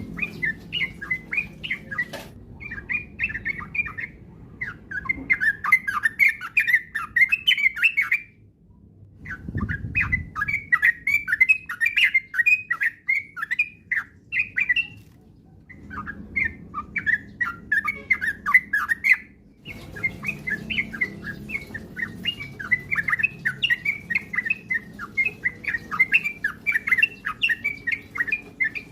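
Yellow-vented bulbuls (trucukan) singing in fast, continuous bubbly chatter. The song comes in runs of several seconds, cut off abruptly by short silent breaks about eight, fifteen and nineteen seconds in.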